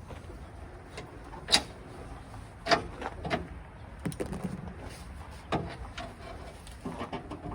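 Irregular metal knocks and clanks, about six in all, from hand work on a mini skid steer's hydraulic lift cylinder and its mounting pin.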